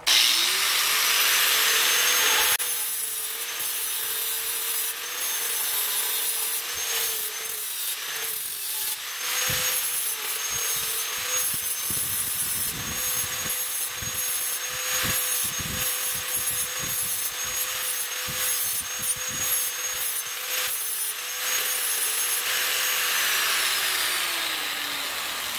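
An electric cutting tool spins up with a rising whine and cuts through 2.5-inch mild steel exhaust pipe, with uneven grating and scraping as it bites. It winds down with a falling whine near the end.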